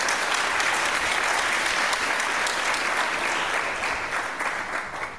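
Audience applauding, dense clapping that dies away near the end.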